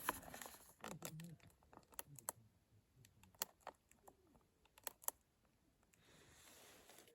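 Faint handling noise: scattered sharp clicks, about eight in the first five seconds, with light rustling between them.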